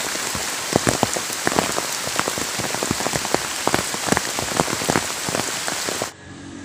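Heavy rain falling on leafy garden foliage, a steady hiss with many sharp drop hits close by. About six seconds in it cuts off abruptly to a much quieter background.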